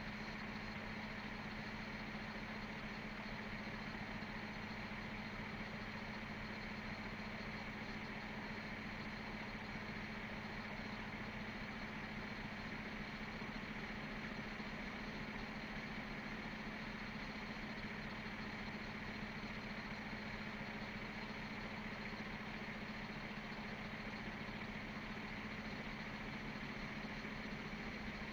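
Heavy equipment engine idling steadily, a constant hum with no revving or change.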